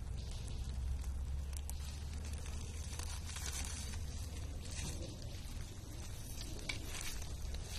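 A burning tinder bundle of dry leaves crackling and rustling as it is handled and set down on the ground, with a few sharp crackles near the end. A steady low rumble runs underneath.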